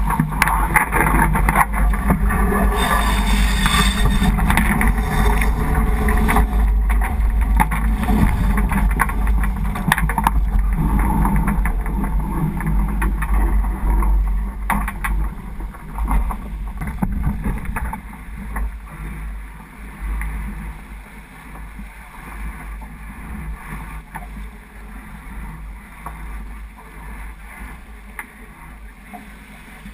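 Wind buffeting the microphone and water rushing along the hull of a J80 sailboat under way, a steady rushing noise with a low rumble. It eases off about two-thirds of the way through.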